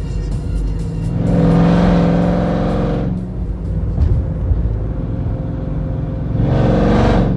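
Supercharged Hemi V8 of a Jeep Grand Cherokee Trackhawk with an open Gthaus valved cat-back exhaust, heard from inside the cabin. It gives two hard bursts of throttle, the first about a second in and lasting under two seconds, the second shorter near the end, with a lower engine and road drone between them.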